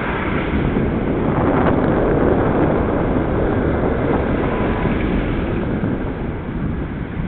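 Wind rushing over the microphone of a bicycle-mounted camera while riding, over the steady noise of street traffic.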